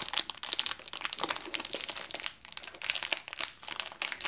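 Grossery Gang toy-pack packaging crinkling in rapid, irregular crackles as it is handled and opened.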